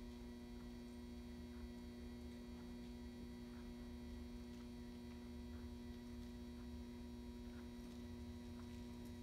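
Steady low electrical mains-type hum, with faint short ticks about once or twice a second.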